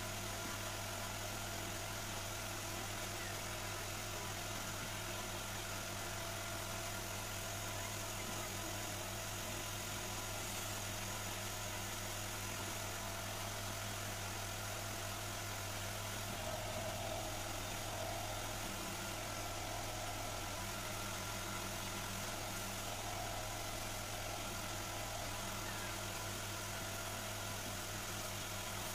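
Wood lathe's electric motor running at a steady speed, a constant hum with the spindle turning.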